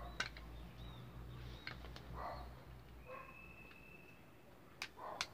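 Faint handling noise: light clicks and taps of a Styllus Term thermal blanket's plastic controller box being picked up and handled, with two sharper clicks near the end, over a low hum. A thin steady tone sounds for about a second in the middle.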